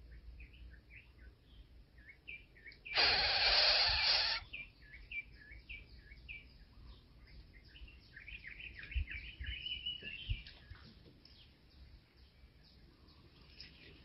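Nestling birds giving short, high chirps over and over, with a loud harsh hiss lasting just over a second about three seconds in.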